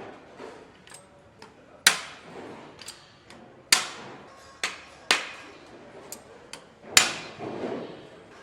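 Sharp metallic knocks and clinks of tools and parts on an engine being assembled: about five loud strikes, the loudest about two seconds in and near the end, among lighter clicks.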